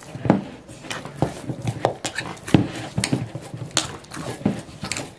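Hands kneading oil-coated bhatura dough in a stainless-steel bowl: irregular sticky squelches and slaps, a few a second, as the dough is pressed and folded.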